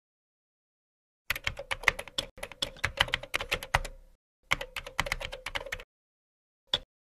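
Keyboard typing sound effect: rapid keystrokes starting about a second in, in two runs broken by a short pause near four seconds, and then one last keystroke near the end.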